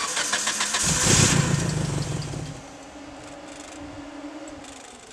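1997 Mitsubishi Eclipse GST's turbocharged 4G63 four-cylinder cranked on the starter. It catches and runs briefly, then dies out within about three seconds: the engine will start but won't stay running despite having spark and fuel, which the owner's mechanic friends put down to the cam angle sensor or the crank position sensor.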